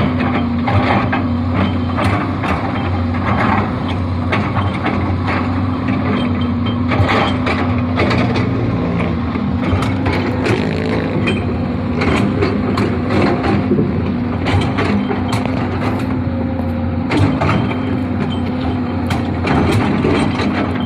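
Hydraulic excavator working: its diesel engine runs steadily under many irregular metallic clicks, clanks and knocks.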